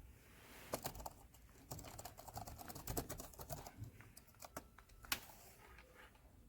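Typing on the ProtoArc EK01 Plus split ergonomic keyboard: an uneven run of quick key clicks that stops about five seconds in.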